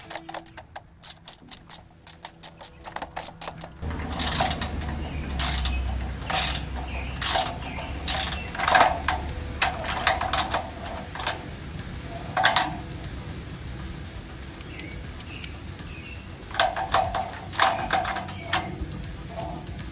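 Hand ratchet wrench clicking in short bursts as a nut is tightened onto a bolt. The first few seconds hold faint quick ticks; louder bursts of clicks come from about four seconds in, pause for a few seconds, then return near the end.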